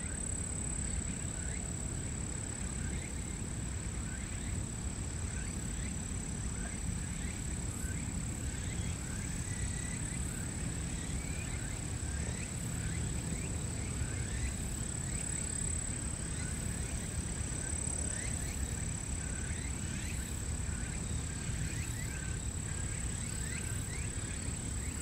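Birds chirping, many short quick calls scattered throughout, over a steady low rumble and a constant high-pitched whine.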